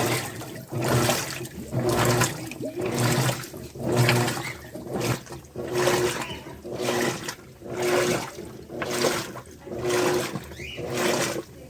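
Electrolux LTD13 top-loading washing machine agitating: water sloshing in even surges about once a second, each with a hum from the motor.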